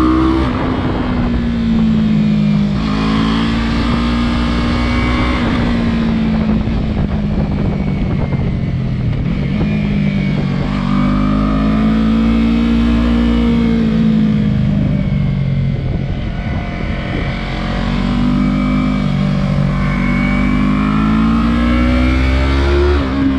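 Yamaha 300 cc parallel-twin motorcycle engine heard from on board while lapping a circuit, its pitch rising and falling in several long swells as the throttle is opened out of corners and rolled off into the next.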